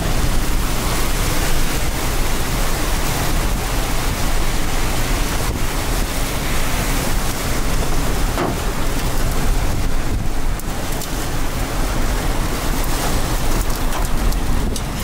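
Strong wind and heavy rain close to a tornado: a steady, loud rush of noise with wind buffeting the microphone.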